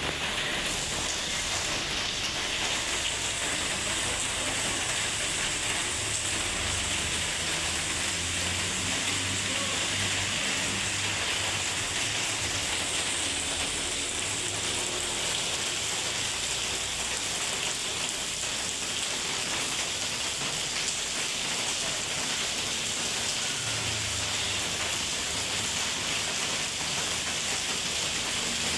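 Rain falling steadily, an even hiss of drops on hard surfaces, with a faint low rumble that swells and fades underneath.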